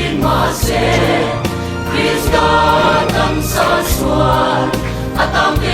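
Background gospel music: a choir singing over a steady bass and beat.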